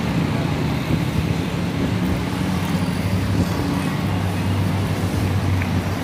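Steady low rumble of road traffic with engines humming, with no single event standing out.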